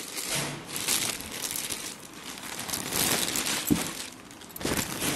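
Plastic packaging bags being handled and crinkling in irregular bursts of rustle, with a brief sharp knock about two-thirds of the way through.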